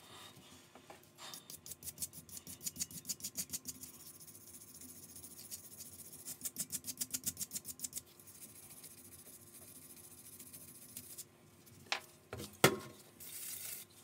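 A brass wire brush scrubs a brass faucet part in two runs of quick, rhythmic strokes, about five or six a second, cleaning the surface flat for reassembly. Near the end come a couple of sharp knocks, the loudest sounds here, and then a short hiss from an aerosol spray can.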